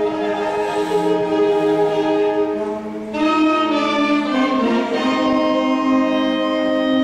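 School wind band of flutes and saxophones playing slow held chords, moving to a new, brighter chord about three seconds in.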